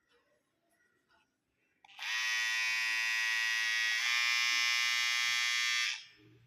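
Electric hair trimmer switched on about two seconds in, giving a steady buzz for about four seconds before it is switched off.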